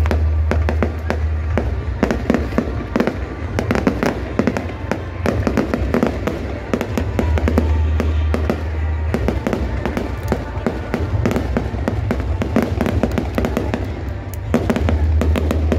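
Aerial fireworks bursting and crackling in quick succession, over loud music with a heavy bass line.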